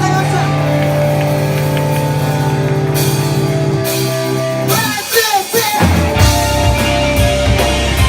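Live rock band playing loud, with held guitar chords. About five seconds in the chords drop out for a brief passage of bending, sliding tones, then the drums and bass crash back in.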